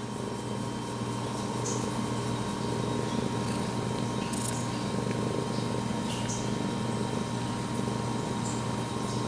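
Domestic cat purring steadily, very close to the microphone.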